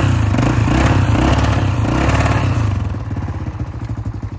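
Yamaha ATV engine revving hard while its tyres spin in soft mud, the machine stuck and unable to climb the bank. About three seconds in the revs drop back to a steady lumpy idle.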